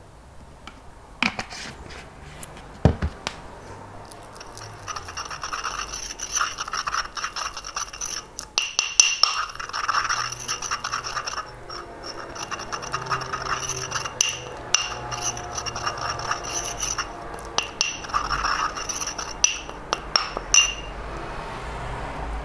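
Glass stirring rod scraping and rubbing around the inside of a glass jar as it works thick blue watercolour pigment paste into medium, in continuous repeated strokes. A few sharp clicks of glass on glass come in the first seconds.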